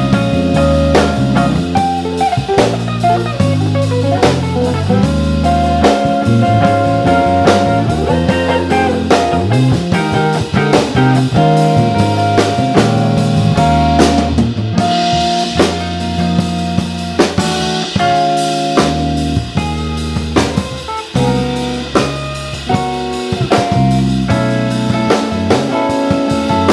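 Live jazz fusion trio of semi-hollow electric guitar, electric bass and drum kit playing together: the guitar holds long melodic notes over a moving bass line and busy drumming, with a cymbal wash about halfway through.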